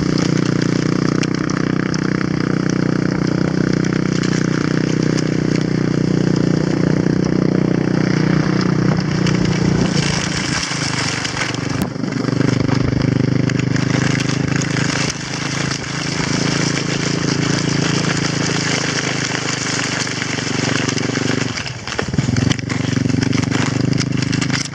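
Quad bike engine running steadily while it tows a sled over snow, with a constant hiss of the sled sliding on the snow. The engine note drops about ten seconds in and dips briefly near the end before picking up again.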